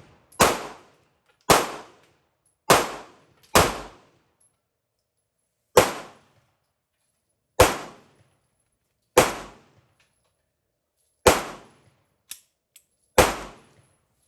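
Nine pistol shots fired one at a time through a magazine: four in quick succession, about one a second, then five more spaced roughly two seconds apart. Two faint clicks come near the end.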